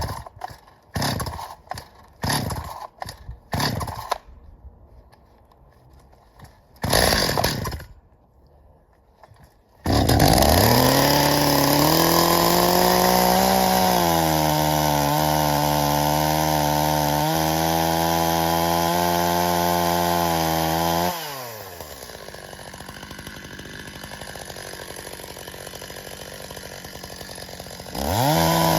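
Stihl MS 270 two-stroke chainsaw. A run of short bursts comes first. About ten seconds in, the saw rises to full throttle and holds there for about eleven seconds, its pitch sagging slightly at times. It then drops back to a quieter idle and revs up again near the end.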